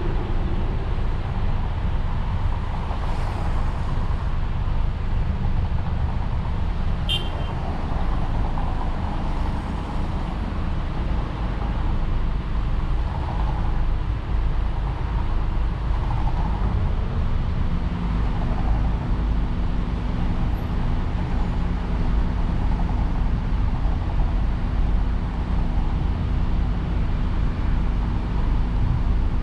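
Steady rumble of a car driving on a highway, tyre and engine noise, with a single sharp click about seven seconds in.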